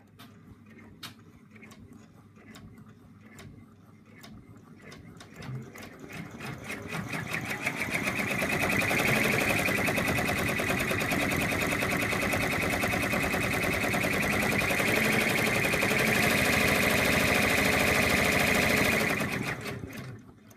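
An embroidery machine stitching out a design in the hoop. Separate ticks at first build over a few seconds into a steady, fast stitching rhythm, which stops shortly before the end.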